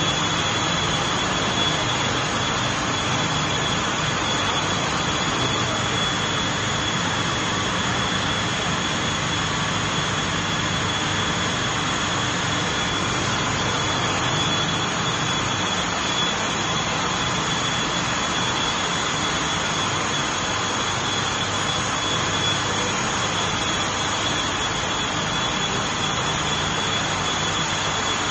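Large HVAC plant machinery running: a steady, unchanging roar with a constant high whine over it.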